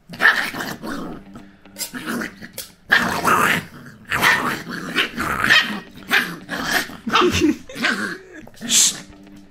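Puppy play-growling in a run of short bursts while mouthing and biting at a hand.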